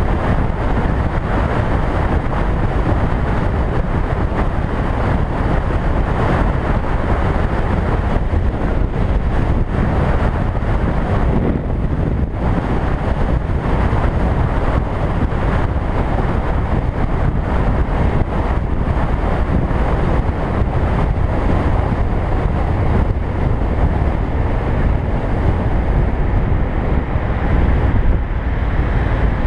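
Steady wind rush on the microphone of a camera on a moving motorcycle, with the motorcycle's engine and road noise underneath.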